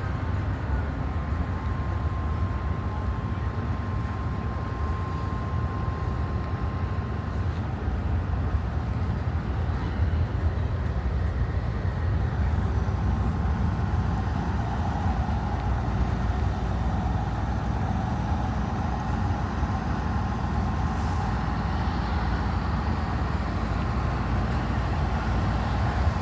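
Steady low rumble of city street traffic, with a faint steady whine for the first seven seconds or so and a few faint short high chirps about halfway through.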